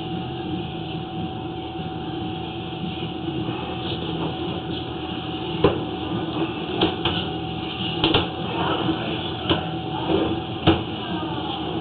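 Steady mechanical running noise with a constant whine, broken by about five sharp knocks in the second half.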